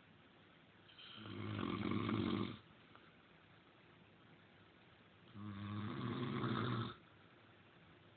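Snoring: two long snores about four seconds apart, each lasting about a second and a half.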